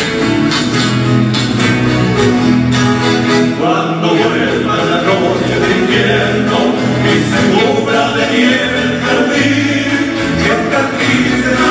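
Live Chilean folk music: a piano accordion and strummed acoustic guitars, with several men's voices singing together from about four seconds in.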